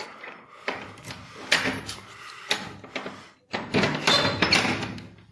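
A door being opened: two spells of rattling and scraping, with a couple of sharp knocks.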